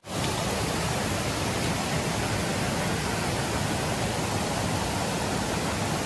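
Steady rush of a rain-swollen forest stream cascading fast over rock slabs, at a small waterfall.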